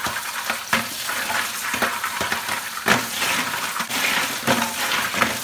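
Running tap water splashing into a stainless steel sink while live snails are rubbed together by hand, their shells clicking and scraping against one another and the steel in quick irregular clacks.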